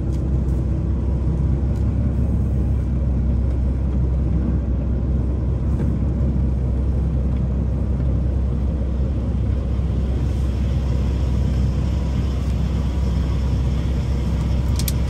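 Semi truck's diesel engine running at low speed with a steady low rumble, heard from inside the cab as the truck creeps forward.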